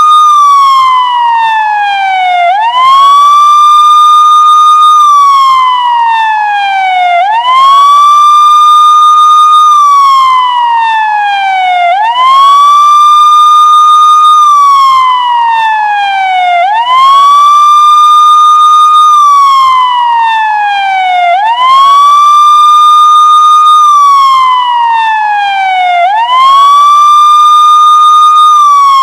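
Siren ringtone: a loud wailing siren tone that sweeps up quickly, holds high for about two seconds, then glides slowly back down, repeating roughly every four to five seconds.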